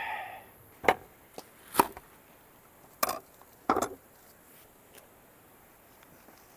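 Five or so sharp, irregularly spaced knocks and clicks of cooking utensils, falling silent after about four seconds.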